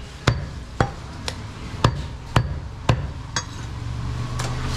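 Chopping strokes on a wooden butcher's block, about seven sharp knocks at a steady pace of roughly two a second, a couple of them lighter.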